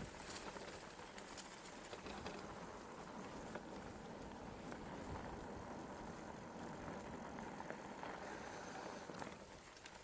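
Mongoose Tyax mountain bike rolling along a rutted dirt track: steady tyre noise on the dirt with the bike rattling, and a few sharp knocks over bumps in the first couple of seconds. It gets a little quieter near the end.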